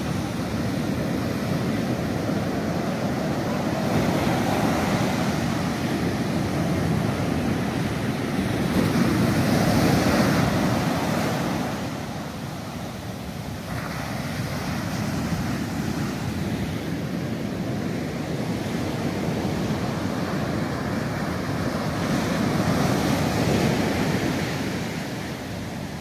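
Sea surf breaking on a sandy beach: a continuous rush of breaking waves and washing foam that swells louder about ten seconds in and again near the end.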